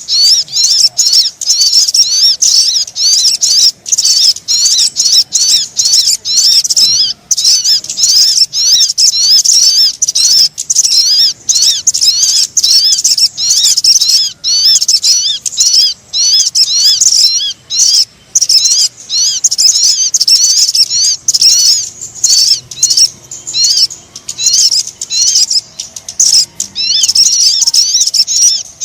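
Bird lure call for sogon birds: rapid, high-pitched chirping notes repeated almost without pause, with only brief breaks.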